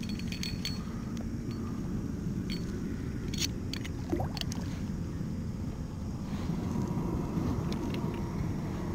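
A small kayak anchor and its rope being handled and lowered over the side of a plastic kayak: a few light knocks and clicks in the first half, over a steady low rumble.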